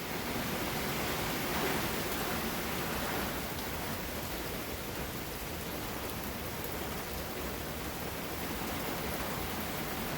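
Hurricane rain and wind: a steady rushing hiss that swells slightly about two seconds in.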